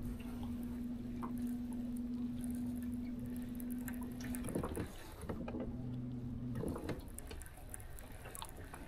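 Electric trolling motor humming steadily at one pitch. It cuts off about halfway through, then runs again briefly at a different setting. Small water sounds lap against the aluminium jon boat's hull.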